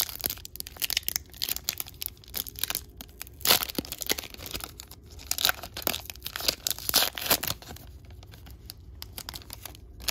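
Wrapper of an Upper Deck AEW trading card pack being torn open and crinkled by hand: a run of sharp crackles, loudest in the middle and thinning out near the end.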